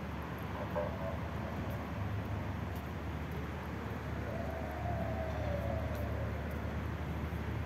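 Outdoor city ambience: a steady low rumble of traffic, with a faint drawn-out tone that rises and falls a little, starting about four seconds in and lasting about two seconds.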